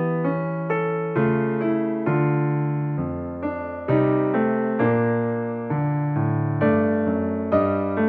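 Background piano music: gentle notes struck every half second or so, each fading before the next.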